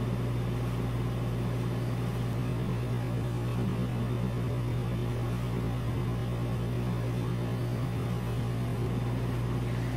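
A steady low hum under a faint even hiss, with no distinct events.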